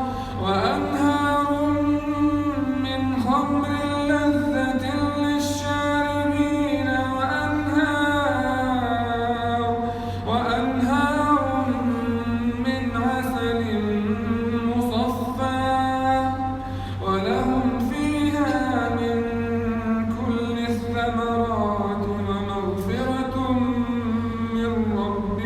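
A man reciting the Quran in melodic tajweed style, drawing out long notes that glide and turn, with short breaths between phrases, over a steady low hum.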